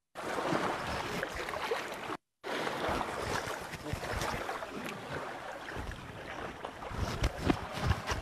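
Rough rush of wind buffeting the microphone, mixed with water splashing and rubbing on a wet young elephant being bathed; a few louder knocks about seven seconds in.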